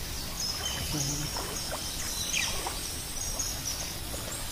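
Monsoon stream water running steadily, with repeated short high-pitched chirps over it and a brief human vocal sound about a second in.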